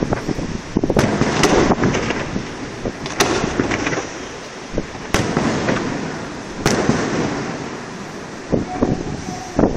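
Aerial fireworks display: shells bursting overhead in a string of sharp bangs, each trailing off into echoing rumble and crackle.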